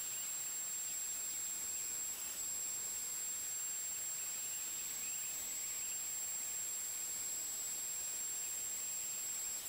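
Benchtop PRO CNC router spindle running steadily while engraving acrylic, with one constant high-pitched whine over a steady hiss.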